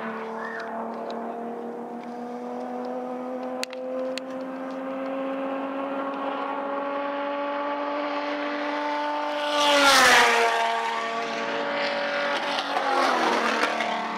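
TC 4000 race car engines running flat out, their note climbing slowly. About ten seconds in, one car passes close by, loud, its pitch dropping sharply as it goes past, and other cars follow behind it.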